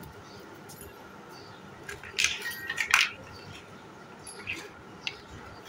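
Large hard-plastic building blocks clacking and clicking as they are handled and pressed together, with a quick cluster of clacks about two to three seconds in and a few lighter clicks near the end.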